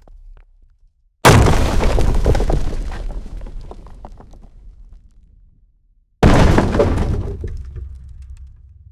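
Two heavy hammer-smash sound effects, about five seconds apart. Each is a sudden loud impact with a deep boom that fades slowly over about four seconds, with scattered crackles like breaking debris as it dies away.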